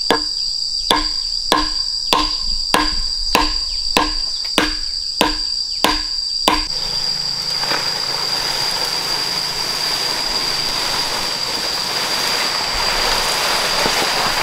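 A steady high-pitched insect drone runs throughout. For the first six and a half seconds it is joined by evenly spaced knocks, each with a short ring, a bit under two a second. The knocks stop abruptly and a steady rushing hiss takes over.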